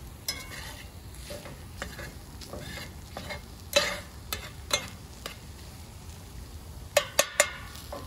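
Eggs, onions and red peppers frying in a cast-iron skillet, sizzling while a metal spatula stirs and scrapes them. The spatula clanks sharply against the pan, a few times about four seconds in and three times in quick succession near the end.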